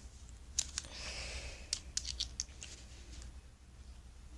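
Multi-tool pocket knife being handled, giving a scatter of small sharp clicks and scratching as its tools are worked open, most of them in the first two seconds or so.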